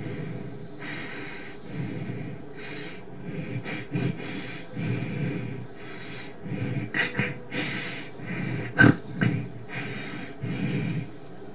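Heavy, rapid breathing, in and out about once a second, with a couple of sharper, louder breaths about three quarters of the way through.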